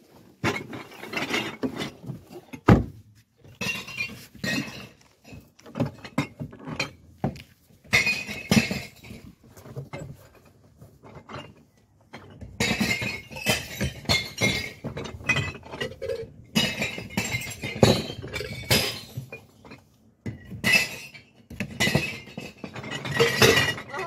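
Glass bottles clinking as they are taken from a cardboard box and dropped into glass-recycling bins, knocking and smashing inside the containers. The knocks come irregularly, thickening into busy runs in the second half.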